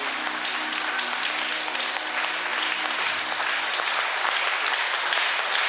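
Audience applauding, with the last held notes of the backing music fading out about three seconds in.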